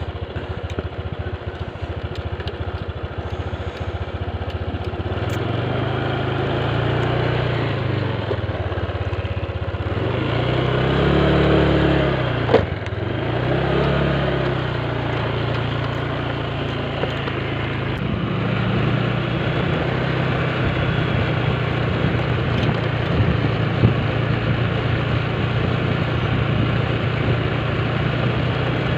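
Small motor scooter engine, uneven at first, then pulling away and running at riding speed. It revs up and down twice near the middle with a brief click, then settles into a steady run.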